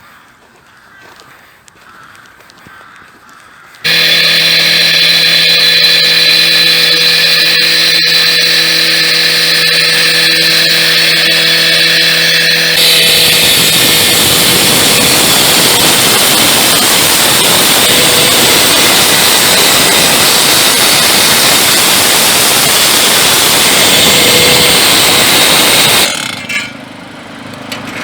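Engine-driven road-repair machine starting up loud and running at a steady pitch; about nine seconds later it turns into a harsher, rougher noise that lasts about thirteen seconds before dropping away near the end.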